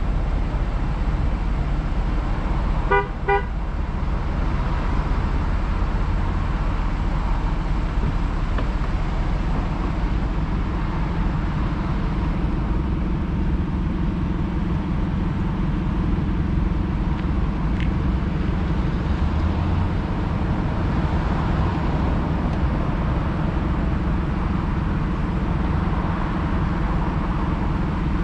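Steady low rumble of road traffic waiting at a light, with a horn giving two quick short beeps about three seconds in.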